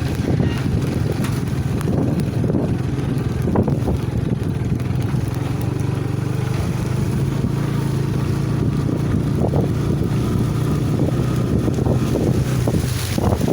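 Wind buffeting the microphone: a loud, steady low rumble, with a low hum that holds through the middle.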